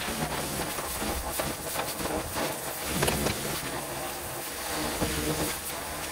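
Pressure washer jetting water, a steady spray noise over the low, even run of the machine's engine.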